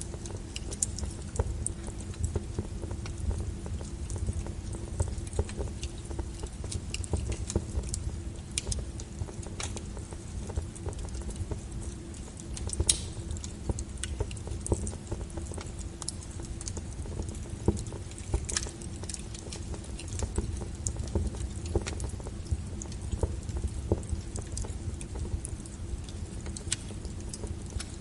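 Wood fire crackling: irregular sharp pops and snaps of burning logs, a few louder ones, over a steady low rumble of flame.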